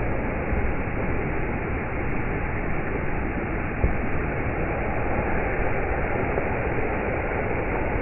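Steady, muffled rush of a waterfall pouring into a pool, with one brief low bump about four seconds in.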